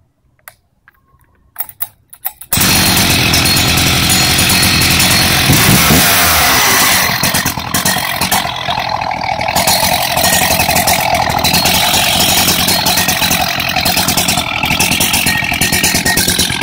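1996 Husqvarna 61 chainsaw's single-cylinder two-stroke engine being pull-started: a few short pulls on the starter cord, then it catches about two and a half seconds in. It runs fast and loud, then settles a little lower about seven seconds in and keeps running.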